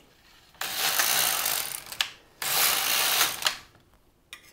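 Carriage of a Silver Reed LK-150 mid-gauge knitting machine pushed across the needle bed and back, knitting two rows of stockinette. It makes a rasping mechanical clatter, one run of about a second and a half, a short pause, then a second run of about a second.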